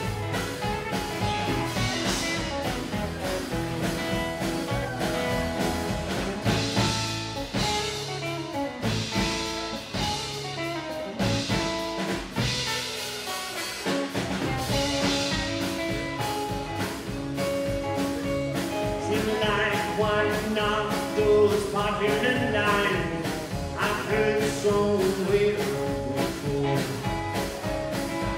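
Live rockabilly band playing an instrumental break: acoustic guitar strummed over a steady drum beat, with a guitar lead line. The bass end drops away for a few seconds midway, then the full band comes back in.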